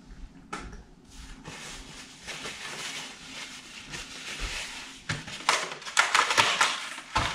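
Hands being rinsed under a kitchen tap and dried with a paper towel: a steady hiss of running water, then crackly paper-towel rustling near the end.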